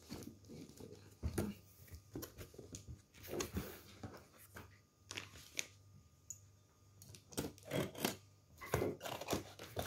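Cardboard box being handled and slit open with a knife along its taped centre seam: irregular scraping, rustling and tapping of cardboard, with a run of louder scrapes near the end.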